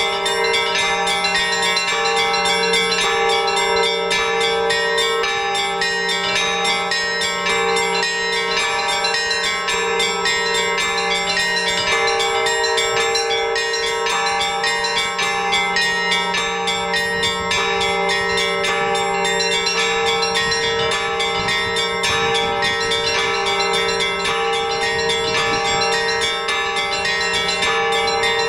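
Orthodox church bells rung together in a continuous peal: several small, high bells struck in a busy, steady rhythm over a deeper bell. The deep bell drops out briefly about 12 seconds in.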